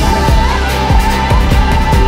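Background music with a steady beat and a sustained melody line.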